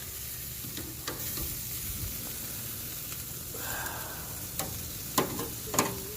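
Meat sizzling on a hot barbecue grill, a steady hiss, with several sharp clicks of metal utensils on the grill, mostly in the second half.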